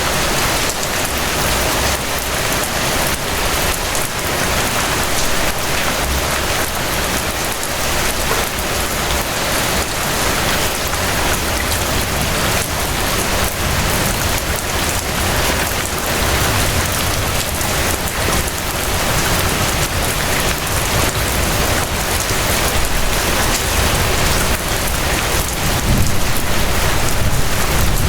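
Steady rain falling, a dense, even patter, with a low rumble growing near the end.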